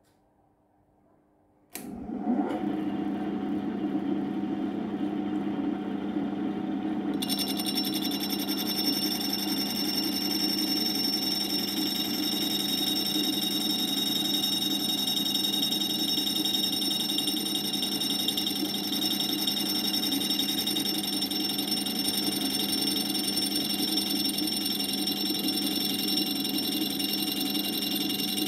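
Lathe motor starting about two seconds in and spinning up a cup grinding wheel, then running with a steady hum; about seven seconds in a steady high-pitched whine joins it and holds.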